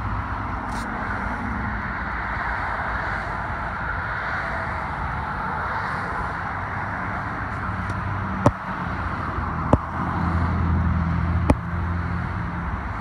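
Steady traffic noise from a busy multi-lane highway, with a deeper engine hum growing louder from about ten seconds in as a heavier vehicle passes. A few sharp clicks stand out in the second half.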